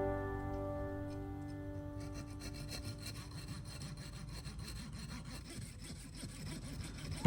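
Background music fading out over the first couple of seconds, leaving faint uneven scraping, as of work on material by hand.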